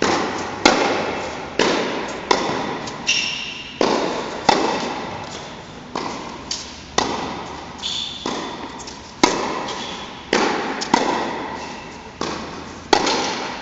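Tennis balls struck by rackets and bouncing on an indoor hard court in a rally: a sharp pock every half second to second, each ringing out in the large hall's echo.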